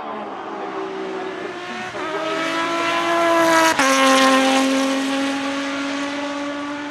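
Off-road race buggy's engine at full throttle as it accelerates past, its note climbing and growing loud. About four seconds in the pitch drops suddenly, then it holds a steady lower note that fades as the buggy pulls away.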